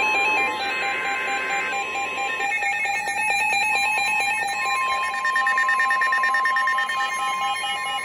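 Several NOAA weather alert radios sounding their alarms together for a Special Marine Warning: a steady high warning tone with overlapping pulsing beeps. The steady tone drops out for about two seconds in the middle, where a faster pulsing beep takes over, then returns.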